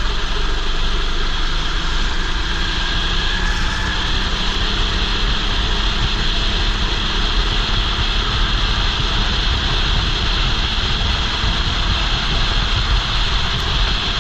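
Go-kart engine running at race speed, heard from a helmet-mounted camera, with steady wind rumble on the microphone; the engine pitch shifts a little in the first few seconds.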